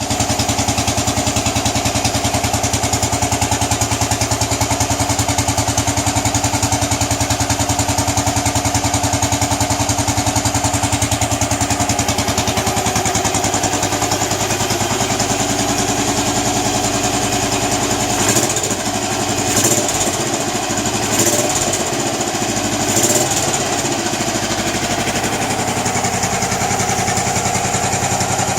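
Royal Enfield Bullet 500 cast-iron single-cylinder engine running with its steady, even thump, with four short swells in sound about two-thirds of the way through.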